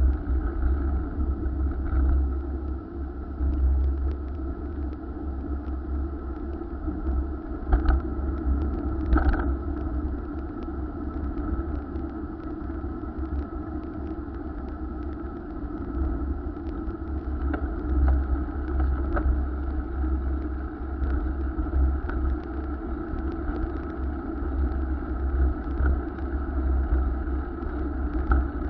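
Wind rumbling and buffeting on the microphone of a moving bicycle, over a steady road noise, with small clicks and rattles throughout.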